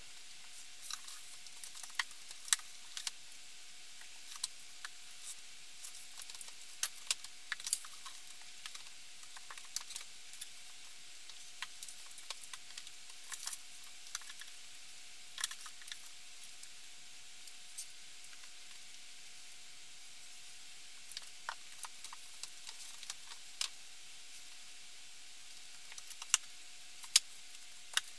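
Books being handled and set onto a wooden bookshelf: irregular sharp taps and knocks as the books are put down and pushed into place, over a steady faint hiss.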